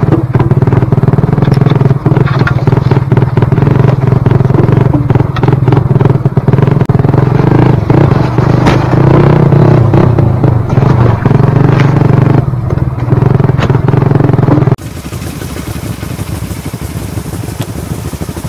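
Dirt bike engine running loud and close while the bike is ridden over a rough trail, with frequent knocks and rattles from the bike over the ground. About fifteen seconds in it cuts suddenly to a much quieter, steady noise.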